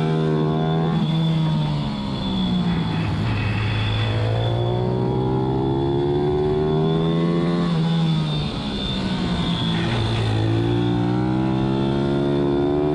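Race pit bike's single-cylinder engine at full race pace, heard from onboard the bike. The revs climb and drop sharply twice, about a second in and about eight seconds in, then climb again.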